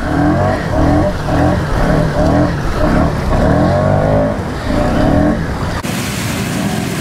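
ATV engine revving in short repeated bursts, about two a second, as the machine churns through a deep mud hole. About six seconds in the revving eases into a steadier run with a rushing hiss.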